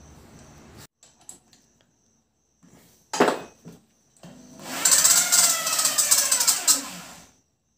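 Electric hand drill spinning an old Royal Enfield Bullet's valve against its seat in the cylinder head, turning the inked valve to check the seating: a brief whir about three seconds in, then a longer run of about two and a half seconds whose pitch wavers.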